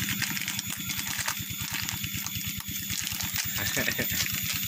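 Steady rain hiss over a fast, even, low pulsing hum, with small clicks and clinks of things being handled.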